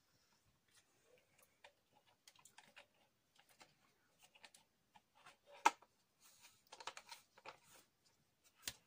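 Faint, irregular clicks and taps from a plastic water bottle being handled, with long false nails tapping on it; the sharpest click comes a little past the middle and another near the end.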